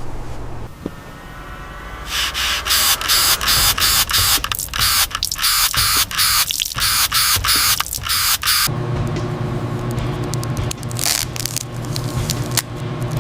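Paint spray gun hissing in short repeated bursts as a coat is sprayed on. A little before the end a steady low motor hum starts, and the spray bursts carry on more briefly over it.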